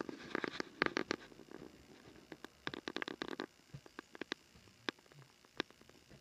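Snoring: two rattling, crackly breaths about two and a half seconds apart, then a few scattered soft clicks.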